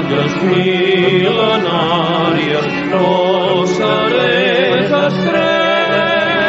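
Music: a choral song, with voices holding notes with vibrato over a steady low accompaniment.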